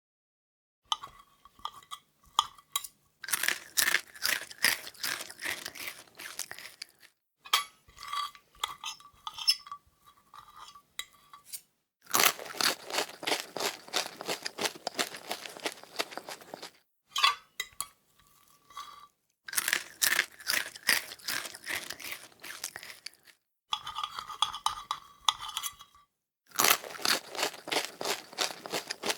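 Metal fork and spoon knocking and scraping together. Sparse ringing clinks alternate with dense runs of rapid clattering rattles, with short pauses between the passages.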